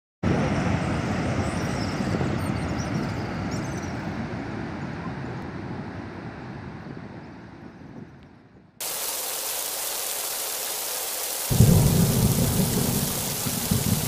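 Water thundering down a dam spillway and churning in the river below, heard as a steady rushing noise. It fades away, cuts back in brighter just before halfway, and a deeper rumble joins it a couple of seconds later.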